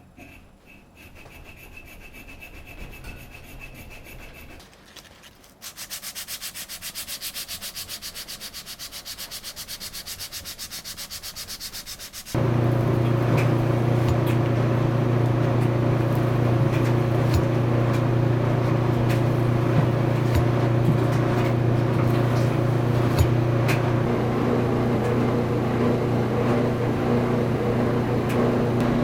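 Sanding sounds: first a light, fast, high hiss of abrasive rubbing, then, about twelve seconds in, a much louder electric sanding machine starts. Its motor runs with a steady hum, and the gritty rasp of the abrasive and a few sharp ticks sit over it.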